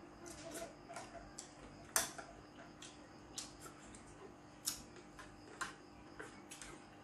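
Plastic spoon clicking and scraping against a porcelain plate as the last of the food is scooped up: irregular sharp clicks, about two a second, the loudest about two seconds in.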